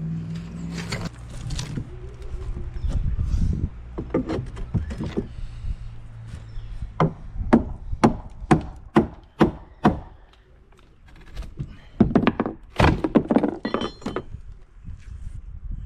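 A series of sharp knocks and thunks on wood, coming about two a second for a few seconds, then another quick cluster near the end.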